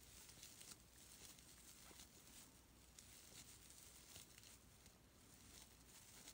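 Near silence: faint rustling and tiny ticks of fuzzy acrylic scrubber yarn being worked with a metal crochet hook, over a low steady hum.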